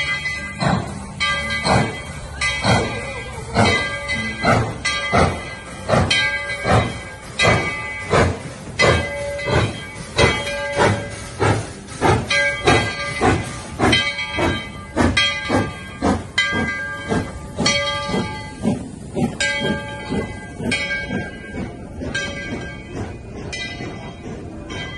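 Tweetsie Railroad's narrow-gauge steam locomotive No. 12 pulling its train past: the locomotive bell rings in a steady rhythm of about one and a half strokes a second, over the hiss of steam.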